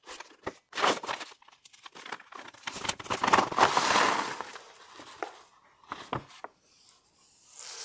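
Paper envelope crinkling and rustling as it is handled, loudest about three to four seconds in, with cardboard boxes shuffled and a few short knocks as they are set down on the bench.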